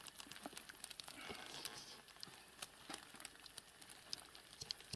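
Faint, irregular wet clicks and crinkling rustles of hands sorting through a heap of small fish in a wet fishing net.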